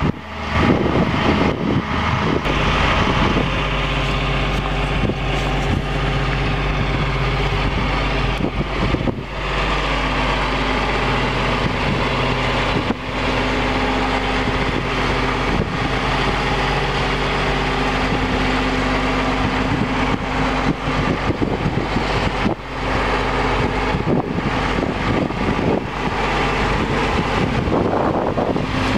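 John Deere 672A motor grader's diesel engine idling steadily.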